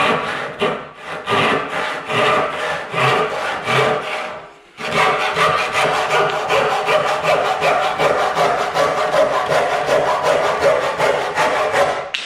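Sharp crosscut hand saw with sharpened teeth cutting through a clamped wooden board, with even back-and-forth strokes about two a second. It pauses briefly about four and a half seconds in, then resumes and stops near the end.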